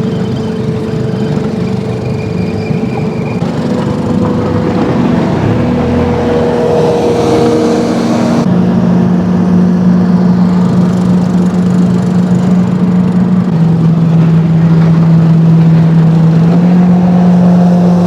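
Boat motor running under way, its pitch climbing a few seconds in and then shifting in steps as the throttle changes.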